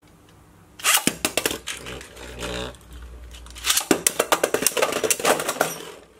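Beyblade Burst tops launched into a plastic BeyStadium. A clatter of hits about a second in, then a steady whirring hum of a top spinning on the stadium floor. From about four seconds there is a quick run of clacking hits as the tops strike each other and the stadium wall.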